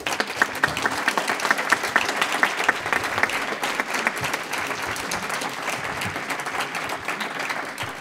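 Audience applauding the end of a talk: many hands clapping, strongest in the first few seconds and easing slightly toward the end.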